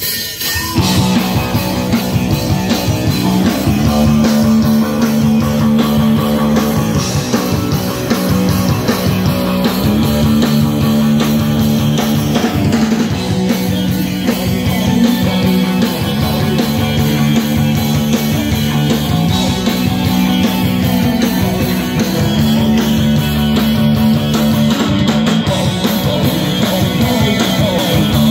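Live rock band playing loud through amplifiers, with electric guitar, bass and drum kit and a repeating low riff.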